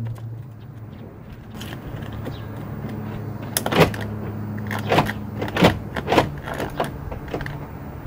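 A series of sharp plastic clicks and snaps starting about halfway through, as the door panel trim around the interior handle is pressed back into place, over a steady low hum.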